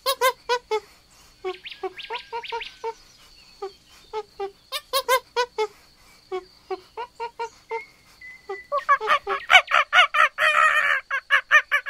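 Monkeys calling in a rapid series of short, sharp chattering calls. The calls are sparse through the middle and build to a dense burst near the end.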